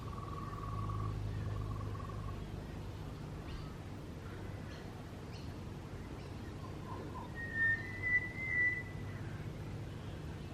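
Birds singing. Two long whistled notes open, then scattered faint higher chirps, and later a louder pair of clear, slightly rising whistles, all over a steady low hum.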